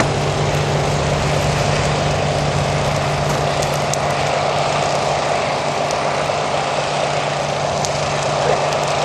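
A motor vehicle engine running steadily with a constant hum, over a rushing noise and a few faint crackles.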